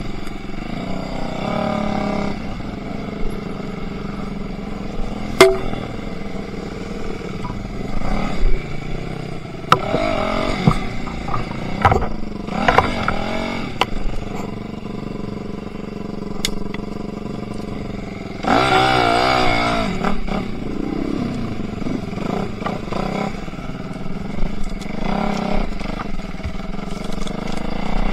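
Enduro motorcycle engine running, its revs rising and falling several times, with the loudest stretch of revving about two-thirds through. A few sharp knocks are heard along the way.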